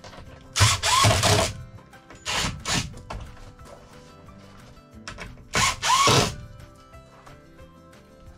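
Cordless drill-driver running the screws of a switch-and-outlet cover plate: short trigger bursts, three main ones, each motor whine spinning up briefly and winding down as a screw is snugged.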